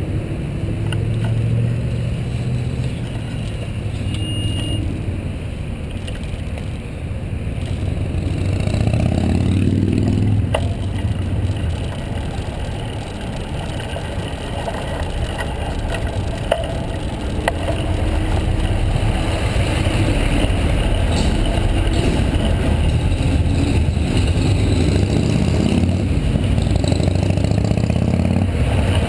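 Street traffic heard from a bicycle: car engines idling and pulling away, one rising in pitch as it speeds up. Later comes a steady rush of wind on the microphone as the bike rides along.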